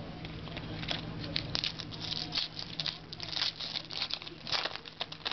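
Paper trading cards being handled and flipped through quickly: an irregular run of crisp rustles and flicks of card stock.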